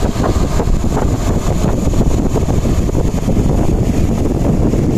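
Muddy floodwater rushing over an earth bank, a loud steady roar of churning water, with wind buffeting the microphone.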